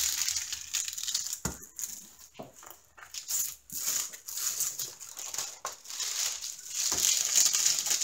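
Clear plastic protective film on a diamond painting canvas crinkling and rustling in patches as hands smooth and press it flat, with a couple of soft knocks of hands on the canvas.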